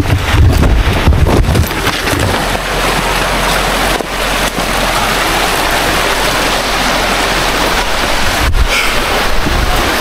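Loud, steady rush of falling water. Low wind rumbles on the microphone come in the first couple of seconds and again near the end.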